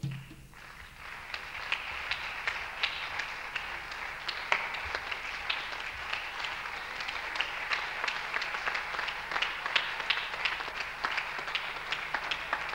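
Audience and cast applauding at a curtain call. The clapping builds up over the first second or two after the music stops, then holds steady, with single sharp claps standing out.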